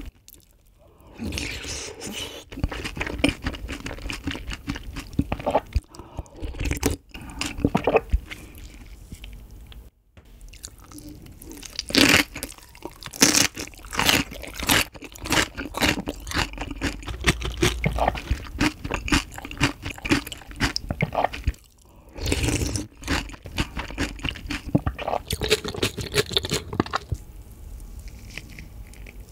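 Close-miked chewing of a mouthful of ice-water rice and fresh napa cabbage kimchi, with many short, sharp crunches. The chewing pauses briefly about ten seconds in and again about twenty-two seconds in, and grows quieter near the end.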